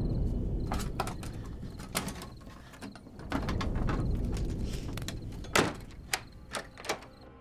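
Horror-film sound design: a low rumbling drone that swells and fades, with scattered sharp knocks and creaks of a wooden door being handled. The sharpest knocks fall close together between about five and a half and seven seconds in.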